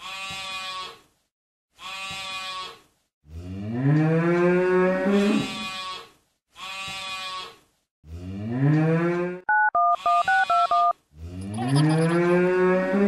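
A series of cattle moos: long calls that rise in pitch and then hold, alternating with shorter, higher calls. About ten seconds in, a quick run of telephone keypad dialing tones.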